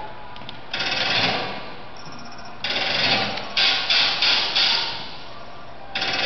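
Dancers' sneakers scuffing and sliding on a wooden dance floor in rough, rasping bursts: one about a second in, a longer run of several sharp scrapes in the middle, and another near the end.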